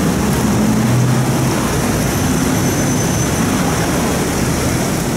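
Steady rush of water sheeting down a textured wall fountain.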